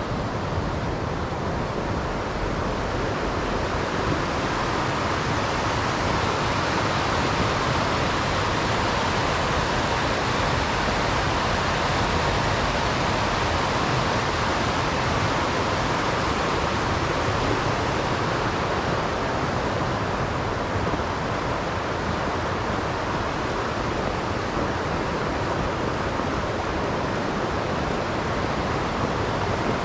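Waterfall water rushing steadily, a constant even noise with no breaks.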